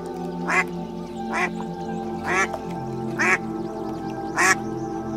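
Domestic ducks quacking: five loud, short quacks about one a second, over steady background music.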